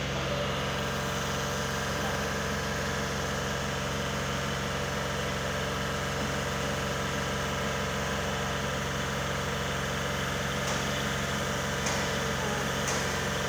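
Truck-mounted telescopic crane's diesel engine running steadily while it holds a long steel arch truss on its hook, with a few faint clicks near the end.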